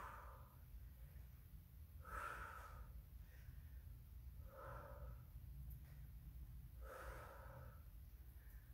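A woman's faint breathing under exertion: four short exhales about two and a half seconds apart, in time with dumbbell lateral raises, over a low steady hum.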